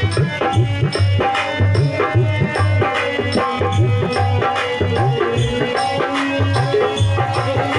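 Instrumental devotional bhajan music: a hand drum beats a steady, quick rhythm under held melody notes, with light high clicks of small percussion.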